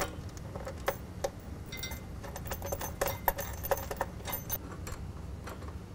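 Small metal clicks and clinks, irregular and thickest in the middle, as a nut and bolt are fitted by hand to a steel step-bar bracket on a pickup's pinch weld.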